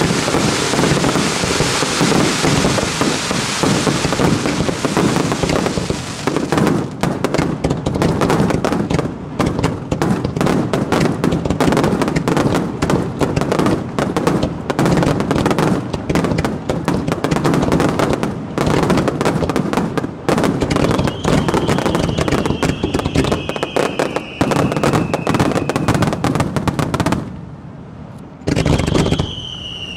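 Rapid-fire fireworks barrage: a dense continuous roll of shell bursts and crackle, breaking into a fast, unbroken string of sharp bangs that pauses briefly near the end. A high falling whistle sounds in the later part.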